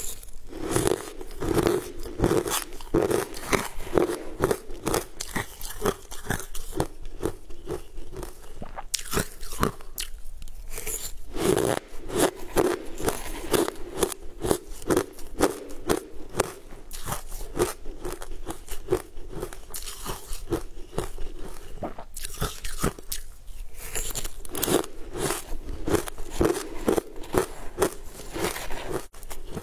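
Mouth crunching and chewing crumbly green frozen sweet ice, spoonful after spoonful: dense, rapid crackly crunches, with a few short pauses between mouthfuls.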